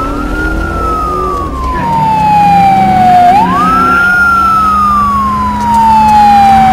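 Emergency vehicle siren wailing: twice it rises quickly in pitch, then falls slowly over about three seconds, growing louder, with a low steady hum beneath.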